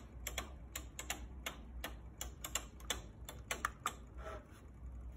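Faint, irregular clicking, about a dozen light ticks, from a battery-powered fly-away food fan being handled while its soft plastic blades spin; the ticks stop a little past four seconds in.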